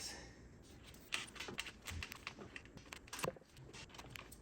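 Small metal bolts clicking and tapping as they are handled and started into the intake manifold, in light, irregular clicks.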